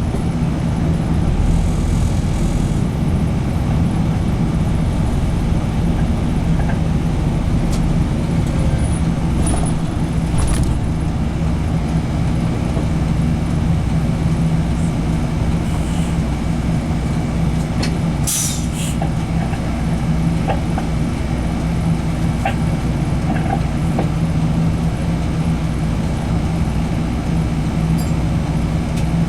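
Engine drone and road noise heard inside the cabin of a JR Bus Chugoku route bus under way, steady throughout, with a few light rattles and a brief high hiss about two-thirds of the way through.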